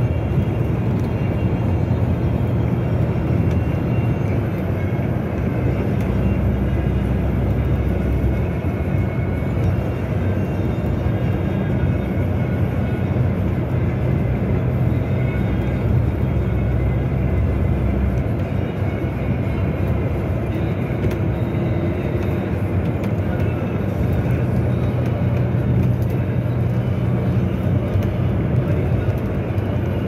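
Steady low drone of a moving car's engine and tyres on the road.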